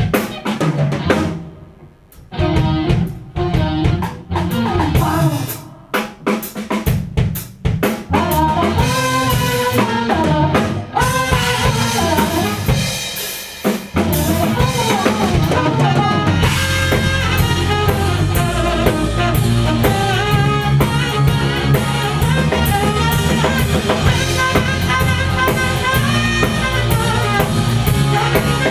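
Live rock band with drum kit, electric guitars, bass and saxophone playing a song. It opens with stop-start accented hits separated by short gaps. About 14 seconds in the full band comes in and plays steadily.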